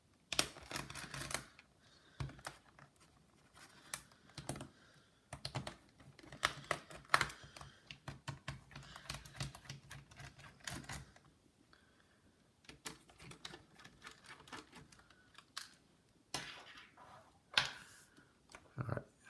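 Precision screwdriver backing small screws out of a laptop's plastic screen bezel: irregular light clicks and ticks of the bit, the screws and handling of the plastic, in short clusters with gaps between.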